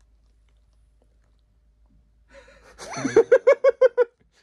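Faint room tone, then about three seconds in a short burst of high-pitched laughter: about seven quick "ha"s in a row.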